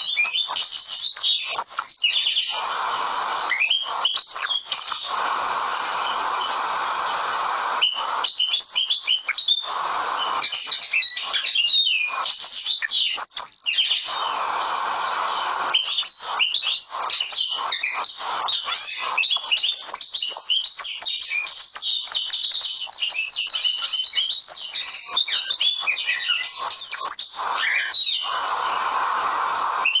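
Common linnet singing a fast, twittering song of chirps and trills that goes on almost without pause. At times a steady hiss sits beneath the song.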